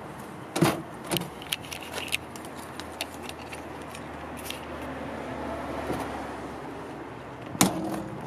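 Light metallic clicks and jingling, scattered over the first few seconds, with a steady low hum underneath; one louder thump near the end.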